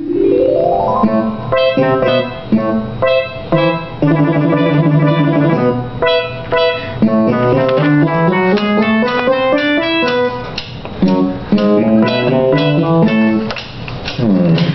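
Instrumental music of plucked and keyboard-like notes, with a rising run at the start and quick repeated notes.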